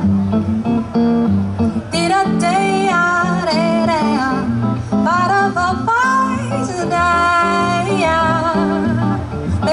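Live jazz band music: guitar chords over a moving bass line, with a gliding, wavering melody line entering about two seconds in.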